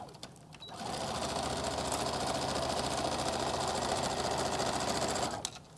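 Electric domestic sewing machine stitching a seam through layered fabric, starting about a second in, running steadily for four to five seconds and stopping just before the end.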